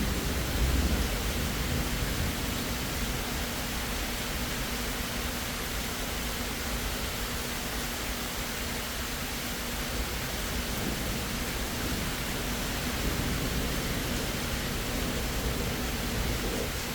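Steady rain hiss, with a low thunder rumble dying away in the first second or two.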